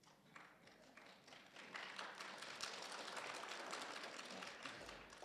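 Faint audience applause: a few scattered claps at first, filling out about two seconds in and thinning again near the end.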